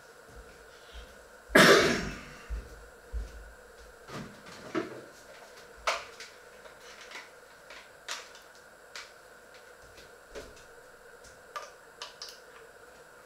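A loud short burst about one and a half seconds in, then scattered light knocks and clicks of kitchen things being handled.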